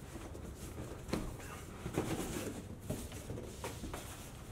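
Cardboard lid of a long shipping box being worked loose and lifted off: soft scraping and rustling of cardboard with a few light taps.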